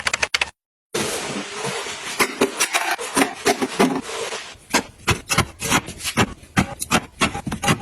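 Household items being handled: a few clicks, a brief dead gap, then a few seconds of steady rubbing and rustling, followed by a run of sharp, irregular clicks and taps.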